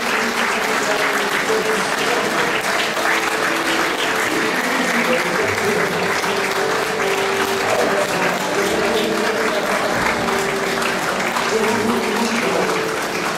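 Audience applauding steadily over background music with a slow held melody.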